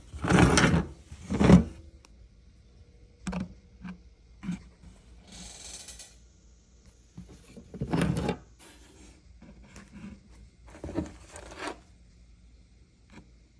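Intermittent handling noises: short scrapes, rubs and knocks of parts and tools being moved about, with a few louder bursts near the start, in the middle and near the end.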